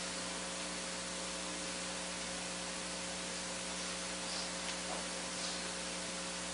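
Steady hiss with a low electrical hum from the microphone and sound system.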